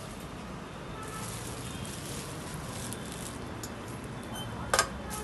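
Low, steady background noise with one short, sharp knock or click near the end.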